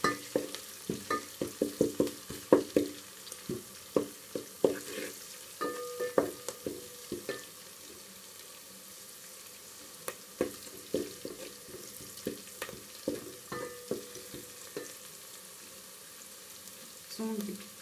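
Chopped onions sizzling in oil in an aluminium pot while a spoon stirs them, knocking and scraping against the pot so that it rings briefly. The knocks come thick in the first seven seconds and again from about ten to fifteen seconds, with only the steady sizzle between.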